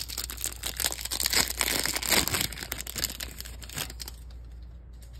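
A Topps baseball card pack's wrapper crinkling and tearing as it is opened. The sound is loudest in the first half and dies down about four seconds in.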